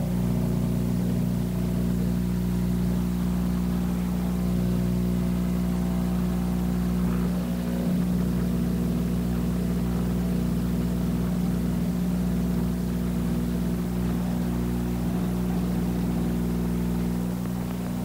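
Dental lab vibrator running with a steady electric hum, the device that shakes air bubbles out of freshly mixed dental stone and plaster.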